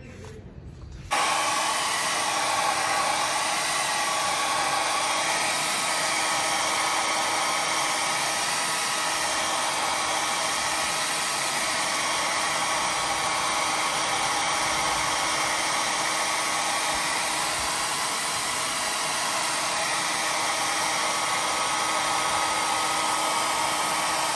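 Handheld electric hair dryer switched on about a second in and running steadily, a rush of air over a steady motor hum, then switched off right at the end. It is blowing hot air on a plastic headlight eyebrow trim to soften its bent band so it seats against the body.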